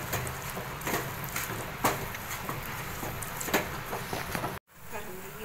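Flat spatula stirring and scraping a thick, hot Mysore pak mixture of gram flour, sugar and ghee in a nonstick pan, with irregular knocks of the spatula against the pan. The sound cuts out for a moment near the end.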